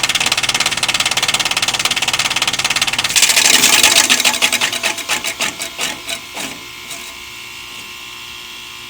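Outdoor heat pump unit making a loud, rapid pulsing mechanical noise, which the owner has been told comes from the defrost cycle. It swells about three seconds in, then falters and dies away by about six seconds in, leaving a quieter steady hum.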